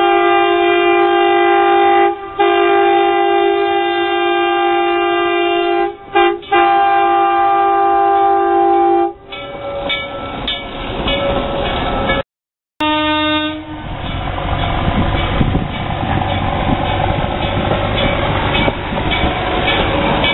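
Chime horn of the Lancaster, Oxford & Southern No. 10, a self-propelled rail motor car, sounding two long blasts, a short one and a final long one, the grade-crossing signal, then the car rumbling across the crossing with its wheels clicking over the rail joints and one more brief toot of the horn.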